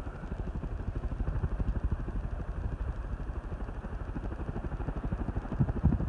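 1984 Hunter Original ceiling fan, a 2.5 amp three-speed model, running on high. The steady whoosh of air from the blades pulses rapidly, and the motor's very mild, low hum is barely heard beneath it.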